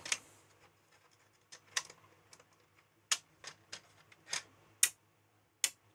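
Irregular sharp clicks and taps as small magnetic PCB grips are handled and set down on a metal base, the magnets clicking onto it. There are about a dozen clicks, the louder ones in the second half.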